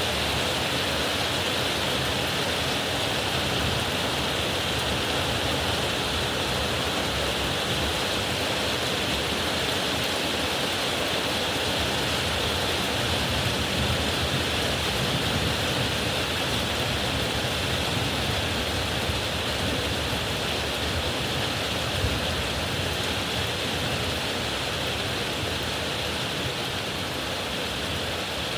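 Heavy rain pouring down steadily, an even hiss of a summer downpour.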